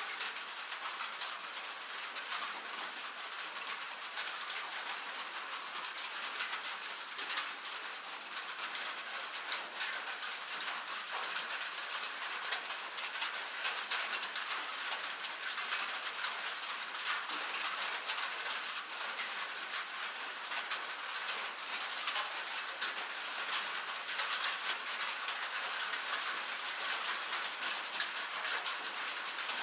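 Steady rain on a metal roof: a dense even patter of drops ticking on the sheet metal, with no let-up.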